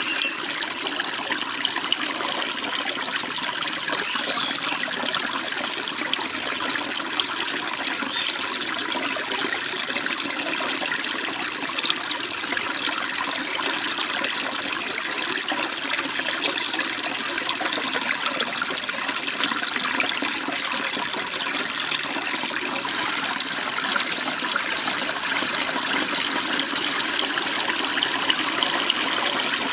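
Forest stream running over small waterfalls: a steady rush of babbling, splashing water.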